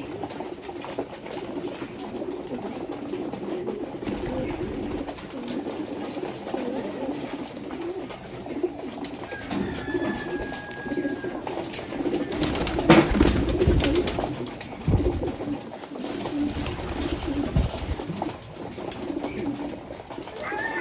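A group of pigeons cooing continuously, their low calls overlapping. A brief louder clatter comes about thirteen seconds in.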